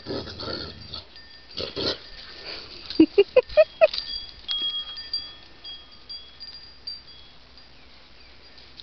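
Dogs vocalising in play: rough grumbling growls, then a quick run of about six short, high yips, each rising in pitch, the loudest part.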